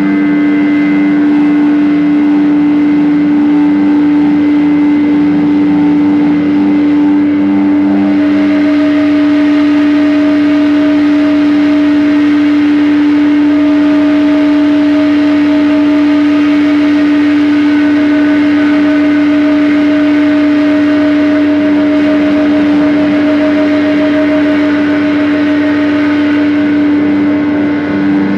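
Loud live amplified drone music: one steady low tone held throughout under a dense noisy wash and other held tones. About eight seconds in, a pulsing lower layer drops out and a new higher tone comes in.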